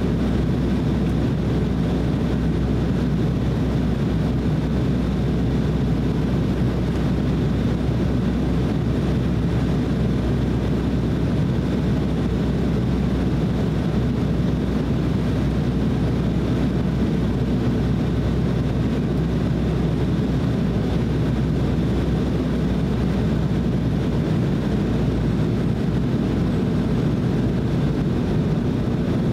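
Steady in-flight cabin noise of an Embraer E190 airliner: the deep, even rumble of its twin turbofan engines and the air rushing past the fuselage, heard from a window seat.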